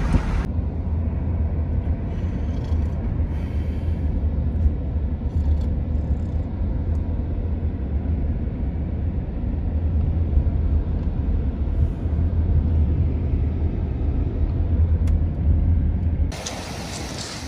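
Steady, low road and engine rumble heard inside the cabin of a moving car. Near the end it cuts abruptly to a quieter, brighter hiss.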